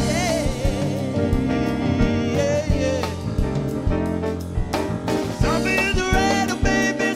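Live band playing a song: a man singing, his voice wavering on long held notes, over keyboards and a drum kit. The voice drops back for a couple of seconds in the middle and comes in again with sustained notes near the end.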